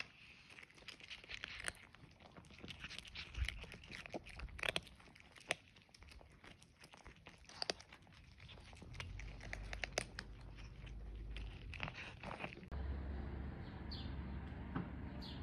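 Irregular crinkling, rustling and crunching, like a cat food bag being handled and dry food being crunched, with scattered sharp clicks; about three seconds before the end a steady low rumble comes in abruptly.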